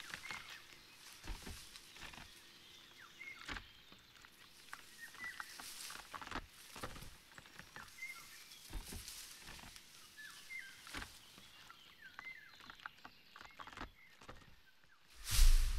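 Woodland ambience: scattered rustling and crackling, with short high chirps every second or two. Near the end a loud burst, then a low steady rumble.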